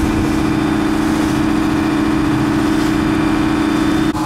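A small passenger boat's engine running steadily while under way: a loud, constant hum with a few steady low tones.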